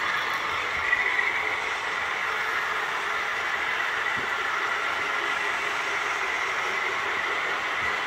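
Model trains running on the layout: a steady whir of small locomotive motors and metal wheels rolling on the track, with a faint steady high whine.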